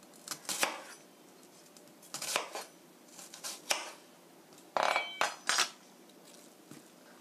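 Chef's knife cutting into a half onion on a cutting board: a few separate knocks of the blade against the board, scoring the onion. About five seconds in comes a louder clatter with a slight ring, followed by two more knocks.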